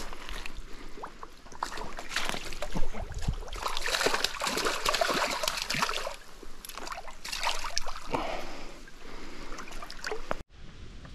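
A hooked brown trout thrashing and splashing at the surface of a shallow stream as it is brought to a landing net, in irregular bursts of splashing that are heaviest in the middle. The sound drops off abruptly near the end.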